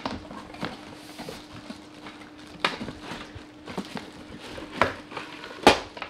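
Unboxing: a cardboard box opened and a plastic-wrapped stainless steel pet-fountain bowl lifted out, with rustling plastic and cardboard and a few sharp knocks and clicks, the loudest near the end.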